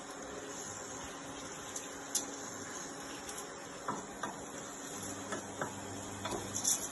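Risotto rice sizzling in a steel pot as the white wine cooks off, with a wooden spoon knocking and scraping against the pot several times.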